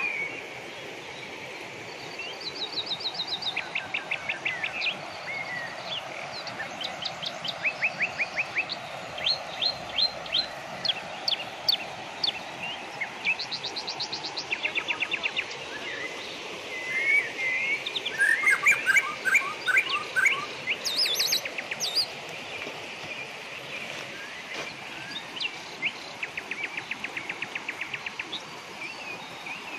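Several forest birds calling over a steady background hiss, many of them in fast trills of short, evenly spaced notes; the chirping is densest and loudest about two-thirds of the way through.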